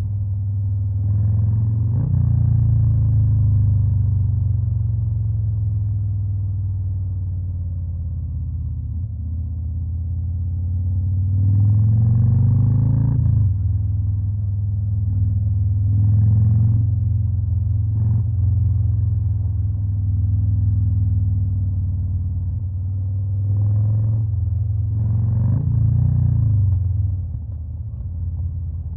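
Stage 2 Harley-Davidson Fat Boy's Milwaukee-Eight V-twin running with a deep, steady exhaust note. The revs swell up and fall back several times: near the start, twice around the middle, and again near the end.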